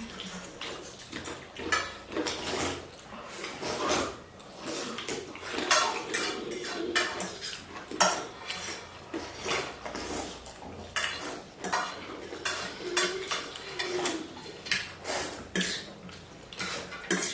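Cutlery clinking and scraping against bowls and plates during a meal, many irregular sharp clicks throughout.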